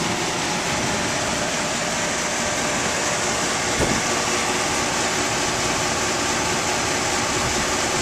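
An old 3-ton Ruud air-conditioning condenser running, its compressor and condenser fan giving a steady rush of air with a faint hum. There is a faint click about halfway through.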